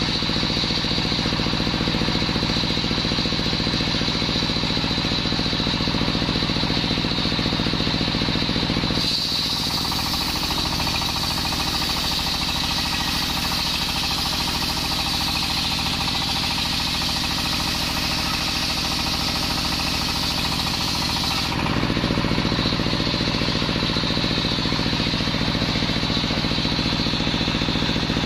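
Large circular sawmill blade running steadily under power while ripping a coconut log lengthwise. From about nine seconds in, the blade biting into the wood adds a high sawing noise over the steady drone of the drive. That noise cuts off suddenly about twelve seconds later.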